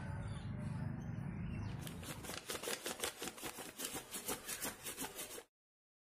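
Folded paper flapping bird having its wings worked by hand: a quick papery flapping, about three to four strokes a second, following a low rumble in the first two seconds. It cuts off suddenly near the end.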